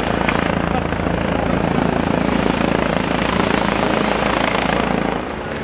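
Helicopter flying over the rally stage, a steady rotor chop and turbine noise, cutting off abruptly about five seconds in.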